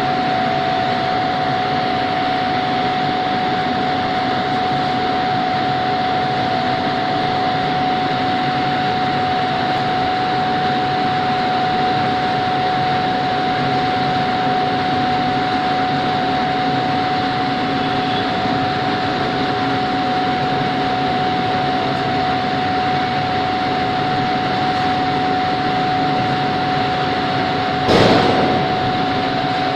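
Loud, steady industrial din of a steel melt shop: a continuous machine noise with a constant high hum running through it. Near the end comes a single loud bang that rings on briefly.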